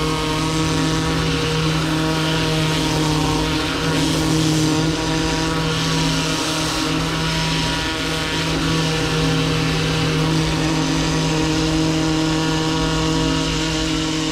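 High-pressure drain-jetting machine running steadily: an even, pitched hum with a hiss of high-pressure water over it.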